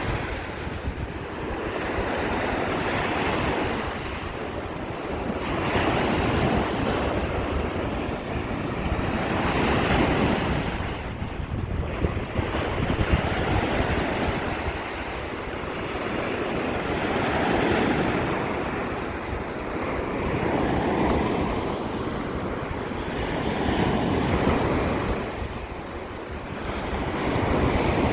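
Sea waves washing onto the shore, the surf swelling and falling every three to four seconds, with wind buffeting the microphone.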